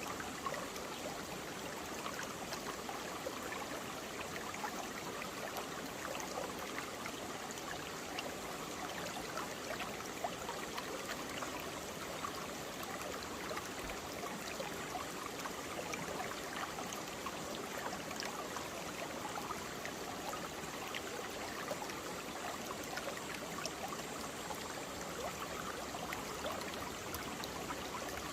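A mountain valley stream flowing and burbling over rocks, steady and continuous, with many small splashes in the rush.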